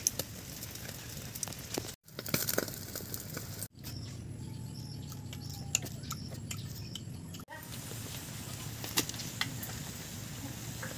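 Open wood fire crackling, with scattered sharp pops and the sizzle of rats singeing on skewers over the flames. The sound breaks off abruptly several times at cuts.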